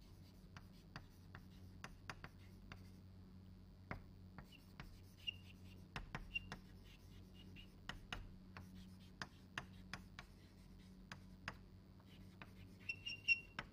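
Chalk writing on a chalkboard: a faint, irregular string of taps and scratches as words are written, with a few short high squeaks.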